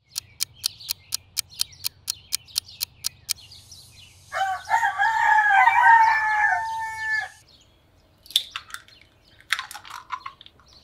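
A rooster crowing once, a long wavering crow of about three seconds, with small birds chirping. It is preceded by a quick run of sharp clicks, about four a second, lasting some three seconds.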